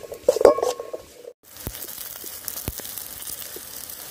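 A wooden spatula stirring garlic cloves and shallots in an aluminium pan, knocking and scraping so the pan rings briefly. After a short break about a second in, a steady sizzle of the garlic and shallots frying in sesame oil, with a few faint pops.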